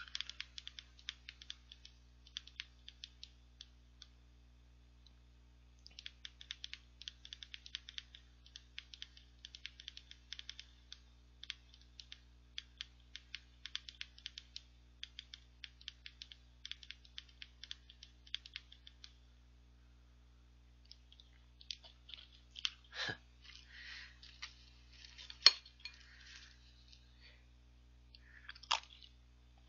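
Rapid clicking of thumb-typing on a smartphone, in two long runs broken by a short pause. Near the end, a spoon clinks against a bowl a few times, one sharp clink the loudest sound.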